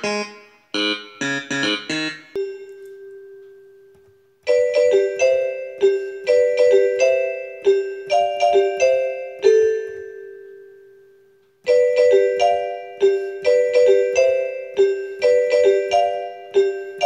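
Background music: a keyboard melody of short, bright struck notes. Twice, about two seconds in and again near the middle, a single held note rings out and fades before the melody resumes.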